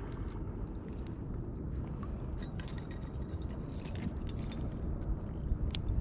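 Metal carabiners and rings on a cord jangling and clinking as they are handled, starting about two and a half seconds in, with a few sharp clicks near the end. A steady low rumble runs underneath.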